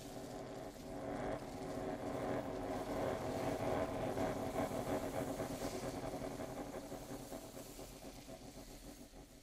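Accordion holding a dense, pitched chord that pulses rapidly, swelling for about four seconds and then slowly fading.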